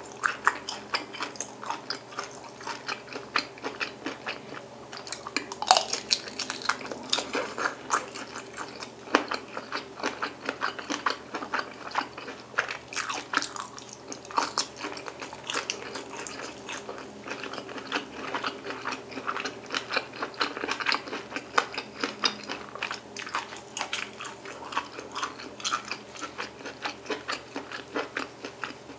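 Close-miked mukbang eating: biting and chewing sausage, meatballs and fettuccine in rosé sauce, with many small wet mouth clicks all the way through.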